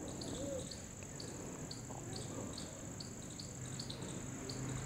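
Faint outdoor insect chorus: a steady high-pitched trill with short chirps repeating two to three times a second.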